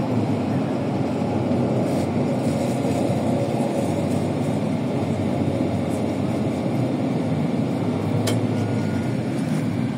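ALSA bus driving, a steady engine and road rumble with no changes in pitch, and one short click about eight seconds in.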